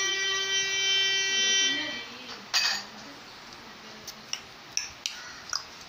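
A steady buzzing tone holds for about two seconds and then stops, followed by one sharp click and several lighter clicks and taps.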